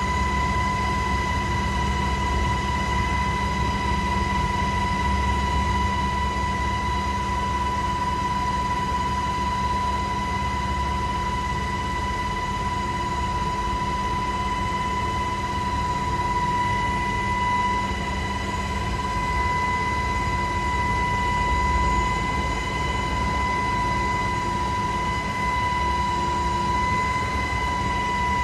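Helicopter engine and rotor noise heard from inside the cabin in flight: a steady low rumble with a steady high whine over it, unchanged as the helicopter banks.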